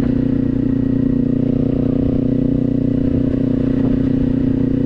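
Kawasaki motorcycle engine running at a steady speed under way, holding one even pitch throughout, heard from the rider's onboard microphone.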